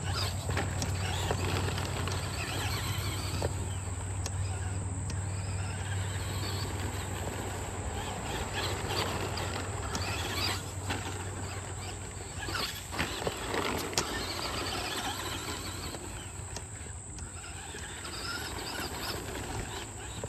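Traxxas Slash 2WD electric RC short-course truck running laps on a dirt track. Its motor whines up and down as it speeds along and brakes for the corners, with its tyres scrabbling on the dirt.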